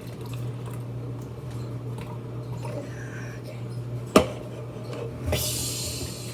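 Drinks being handled at a table: a sharp clack, like a cup or bottle set down, about four seconds in, then a short hiss about a second later, over a steady low hum.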